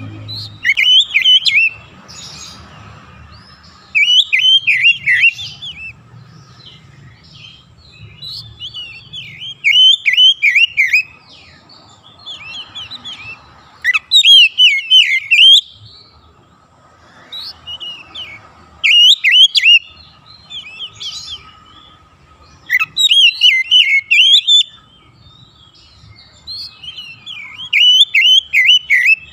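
Oriental magpie-robin singing in loud bursts of rapid, varied whistled notes, one phrase of a second or two coming every few seconds: the full, vigorous song of a bird in form.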